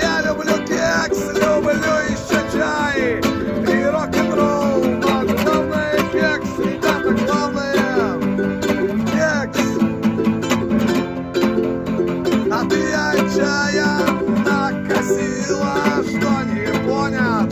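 A ukulele and an acoustic guitar played together, with a man singing over them.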